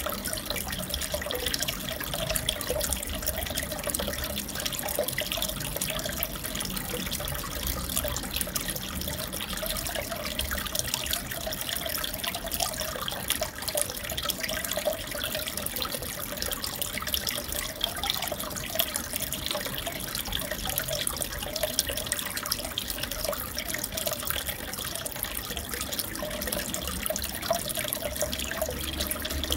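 Aquarium water trickling and splashing steadily, with a dense patter of tiny splashes.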